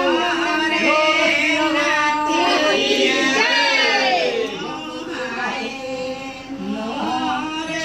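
Singing, with long held notes that slide in pitch, quieter from about five seconds in.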